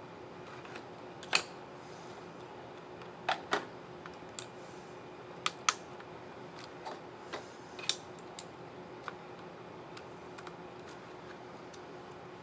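Sharp, irregular plastic clicks from an HP 15 DW laptop keycap and its scissor mechanism being fitted and pressed onto the keyboard. The loudest click comes about a second in, and several come in close pairs, over a faint steady hum.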